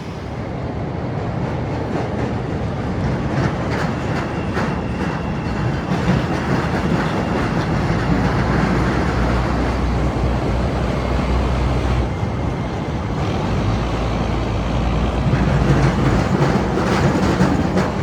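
Chicago 'L' elevated train running along the Loop tracks, a continuous rumble with wheel clatter that swells twice.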